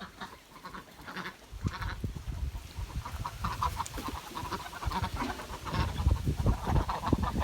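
A flock of domestic ducks calling over and over, the calls crowding together and getting louder toward the end, over low rumbling and shuffling of the birds being handled.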